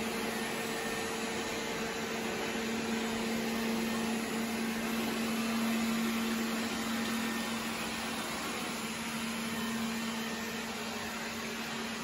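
Roborock S5 robot vacuum running a spot clean on a hard floor: its suction fan and brushes make a steady whir with a constant low hum underneath.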